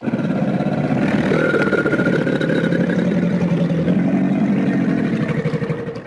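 A fictional monster's sound effect: a long, low, rumbling growl that starts abruptly and runs unbroken for about six seconds, tapering off near the end.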